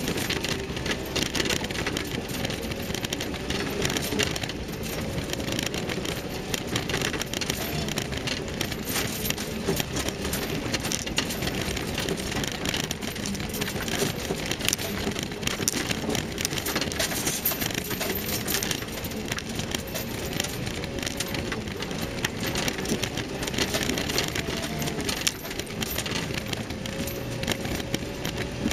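Land Rover Series III driving over a rough, stony woodland track, with a constant clatter of rattles and knocks from the tyres and bodywork over a running engine and a faint wavering whine.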